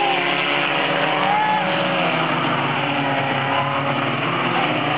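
Several four-cylinder pony stock race cars running around a figure-eight track, their engine notes rising and falling as they accelerate and lift, over a steady wash of engine and track noise.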